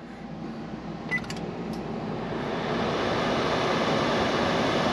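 Convection microwave oven being set by keypad: a short beep and a click a little over a second in, then the oven starts and runs with a steady whirring hum of its fan that slowly grows louder.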